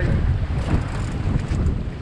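Wind buffeting the microphone over the steady low rumble of a sportfishing boat's triple outboard engines, with sea water washing at the stern.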